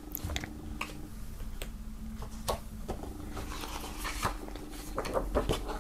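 Pages of a thick hardcover photo book being turned by hand: a series of short paper flicks and rustles, with soft taps as each page settles.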